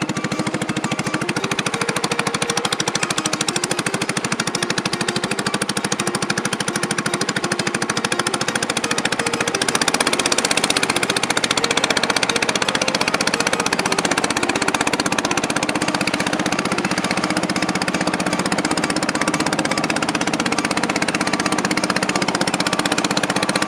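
Small riverboat's engine running steadily under way, a fast, even pulsing that gets a little louder about ten seconds in.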